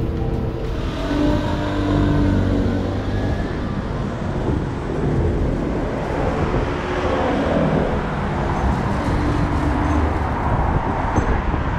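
Street traffic noise, a steady rumble of passing vehicles, with one vehicle passing by about seven seconds in.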